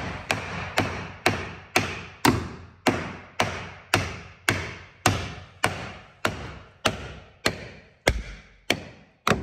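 Mallet striking a flat metal bar held against the end of a reclaimed hardwood floorboard, driving the board into place. About twenty even taps, roughly two a second, each with a short ring.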